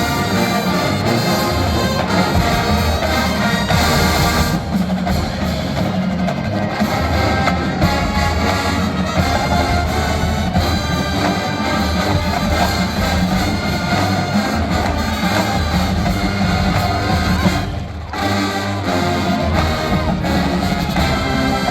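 Marching band playing a brassy jazz arrangement, trumpets and trombones over drums; the sound drops out for a moment about eighteen seconds in, then the full band comes back.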